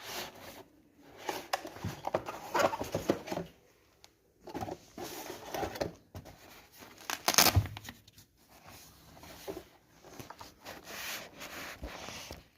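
Irregular rustling and handling noise in bursts with sharp clicks, the loudest click about seven and a half seconds in.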